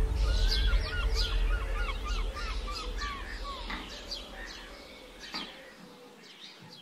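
Birds chirping in a quick series of short notes, about four a second, with more scattered higher chirps, over a low steady drone that fades away.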